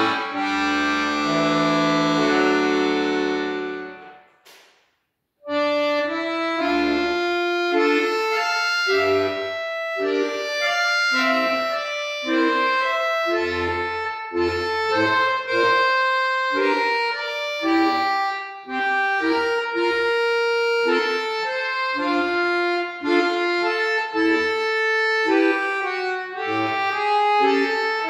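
Piano accordion played solo: a loud held chord ends about four seconds in, and after a pause of about a second a brisk piece begins, with short detached treble notes over short bass notes.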